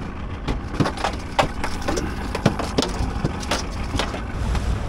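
A freshly landed bluefish flopping in the boat, giving irregular knocks and thuds against the hull, over low wind rumble on the microphone.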